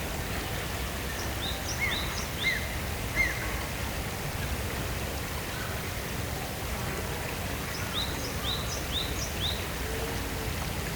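A small bird giving two short runs of quick, high, repeated chirps, three or four notes each, about a second in and again near the end. Beneath them is a steady rushing background noise.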